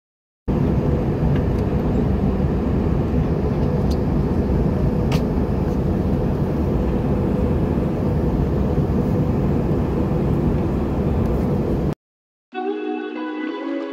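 Steady in-flight cabin noise of an Airbus A320: the even roar of engines and airflow with a low hum beneath it. It starts suddenly about half a second in and cuts off abruptly near the end.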